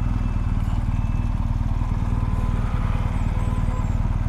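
BMW R1250GS's 1254 cc boxer-twin engine running steadily at low road speed, with a dense low pulsing.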